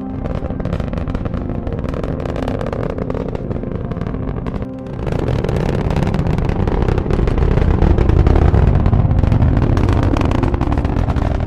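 Rocket engine roar sound effect, a rough crackling rumble with a brief break about five seconds in. It then comes back louder and stays loud to near the end as the stage descends on its engine.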